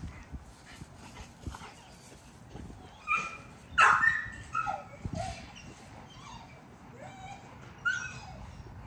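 American bully dogs playing rough, with a run of short, high whines and yips, the loudest about four seconds in and a couple more near the end.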